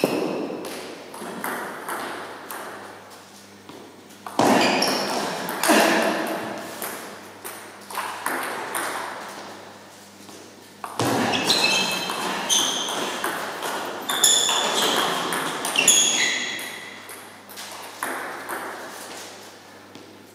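Table tennis rallies: the ball clicking off the paddles and pinging on a Butterfly table in quick back-and-forth exchanges. New rallies start abruptly about four seconds in and again about eleven seconds in, each thinning out before the next.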